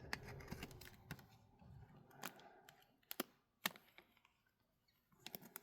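Near silence with a few faint, scattered clicks and taps from trading cards and packaging being handled.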